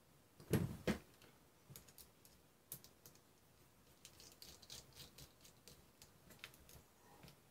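FPV drone frame and arm parts being handled and fitted together by hand, with a few louder knocks in the first second, then scattered light clicks.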